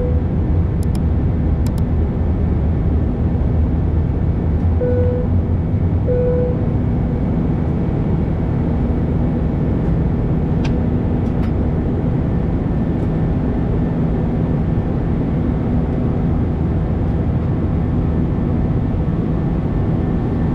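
Airbus A319 cabin noise heard from a window seat during the climb: a steady, deep rush of engines and airflow. A few brief soft tones sound at the start and again about five and six seconds in.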